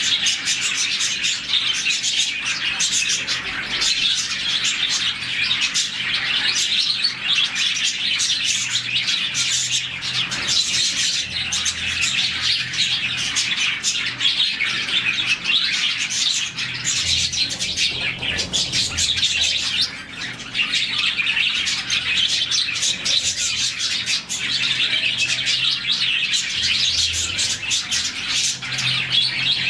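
A flock of budgerigars, around forty birds, chirping and chattering all at once in a dense, continuous twitter.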